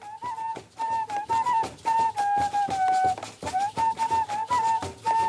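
Chirimía music from the Colombian Massif: a transverse flute plays a melody of short held notes over steady drum beats.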